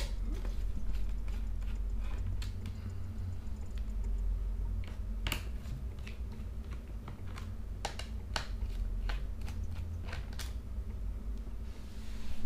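Small precision screwdriver loosening the screws of a laptop's bottom cover: scattered light clicks and taps as the bit engages and turns the screws and knocks against the plastic case, over a low steady hum.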